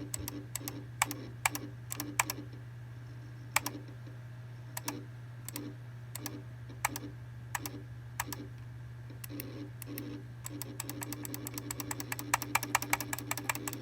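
A PC giving off irregular crackling clicks with short buzzy chirps over a steady low hum, a weird noise that comes when the mouse is used. The clicks come thick and fast from about ten seconds in.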